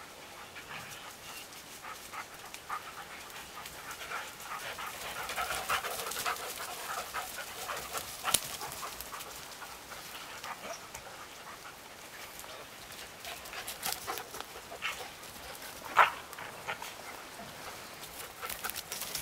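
Several dogs panting and moving about through brush and heath, with rustling and short sharp snaps; one brief sharp sound near the end stands out as the loudest.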